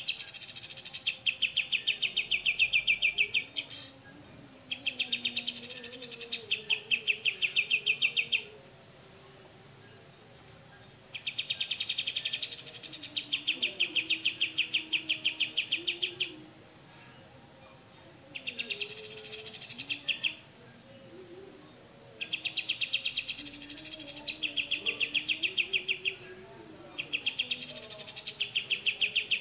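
Cucak jenggot (grey-cheeked bulbul) giving its 'besetan' call: long rasping trains of rapid, even pulses, each a few seconds long, about six in a row with short pauses between them, over a faint steady high tone.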